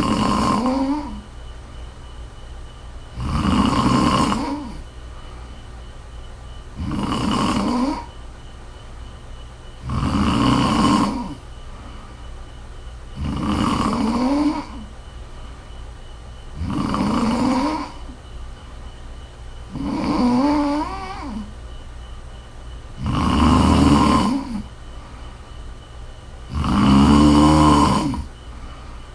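A woman snoring in her sleep: a snore on each breath about every three and a half seconds, nine in all. Some snores carry a pitch that wavers.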